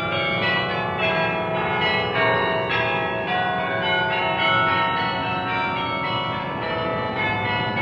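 Church bells ringing a tune, a new bell struck about twice a second with each note ringing on over the next.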